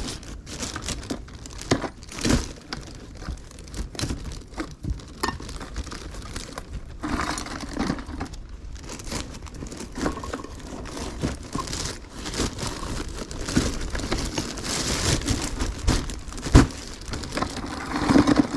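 Magnet-fishing scrap metal being handled and sorted: irregular knocks and clatters of metal pieces over continuous crinkling and rustling.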